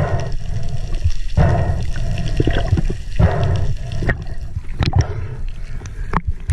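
Water sloshing and bubbling around an underwater action camera as a freediver hauls in a speared fish, with sharp knocks and clicks scattered through. Near the end the camera breaks the surface.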